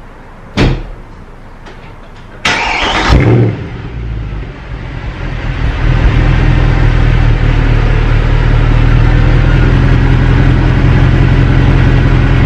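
A short sharp knock, then the Mercedes-AMG C63's 6.2-litre V8 starting from cold about two and a half seconds in: it flares loudly for a second through the exhaust, dips, then rises and settles into a steady fast cold idle.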